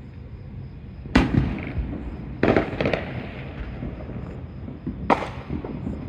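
Fireworks going off: a sharp bang about a second in, a quick cluster of several pops around two and a half seconds, and another bang near five seconds, over a steady low background rumble.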